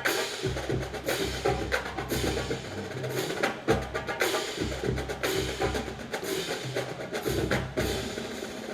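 Drum corps drum line playing a percussion cadence: fast clicking snare and rim strokes over pitched bass drum notes.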